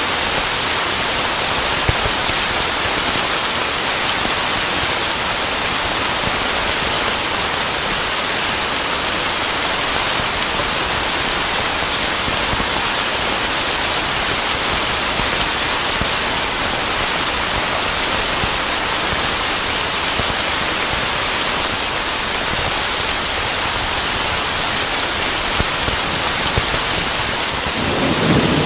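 Steady heavy rain pattering on a surface, an even hiss. In the last second a low roll of thunder begins.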